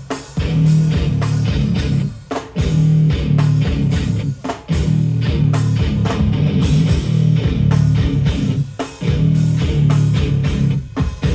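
Hardcore band playing live: distorted electric guitar and bass riff with drums. The riff cuts off sharply for a moment about four times in stop-start fashion.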